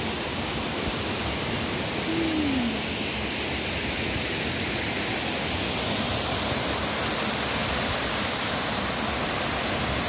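Waterfall plunging into a pool, a steady, even rush of falling water.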